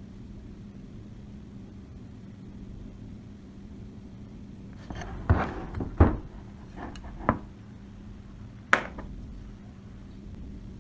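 Several sharp knocks and clicks, bunched together about five to six seconds in, then two more single ones, over a steady low hum.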